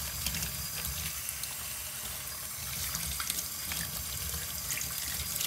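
Tap water running into a stainless steel sink and splashing over a handful of dry onion skins being rinsed by hand, with scattered small crackles.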